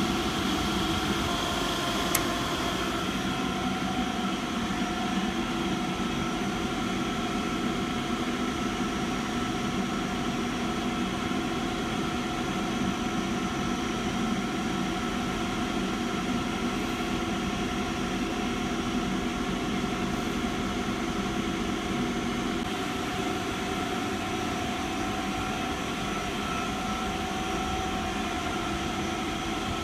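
Adicomp WIND 5-500 rotary screw air compressor on a 500 l receiver tank running with a steady hum and several constant tones, with one brief click about two seconds in.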